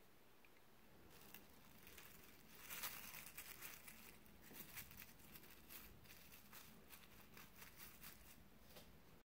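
Thin plastic sheet crinkling and rustling faintly as it is spread over balls of bread dough and smoothed down by hand, loudest about three seconds in.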